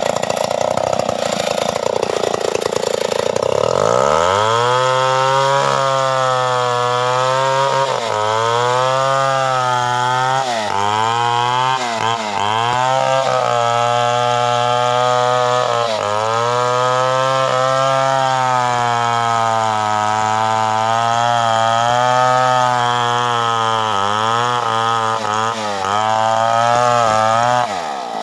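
Stihl 070 two-stroke chainsaw running hard while cutting teak, its engine note sagging under load and picking up again every few seconds. About a second in the note drops low, then climbs back up around four seconds in.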